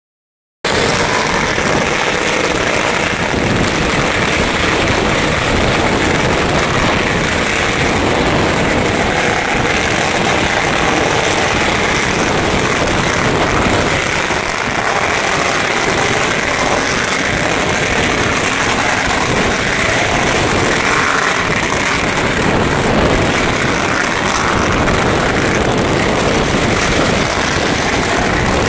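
Long strings of firecrackers going off without a break: a loud, dense, rapid crackle that starts about half a second in.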